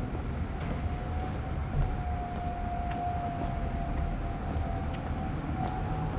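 City street ambience: a steady low rumble of traffic with a high, slightly wavering whine held over it from an unseen source, and a few faint ticks.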